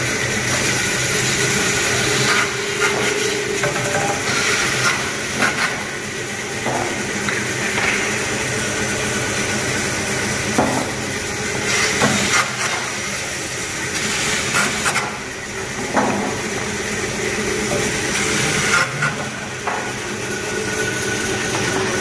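Band-saw pallet dismantling machine running steadily, its blade cutting through the nails that hold the pallet boards, with short sharp knocks and screeches every couple of seconds as the pallet is pushed through.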